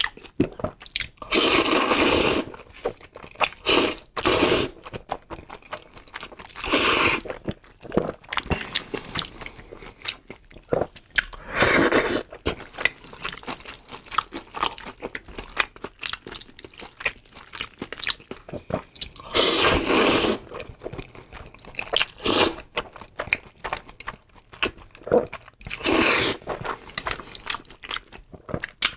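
Close-miked eating of black-bean-sauce noodles and a fried cutlet: chewing and crunching, with several loud bursts about a second long, as of noodles slurped in.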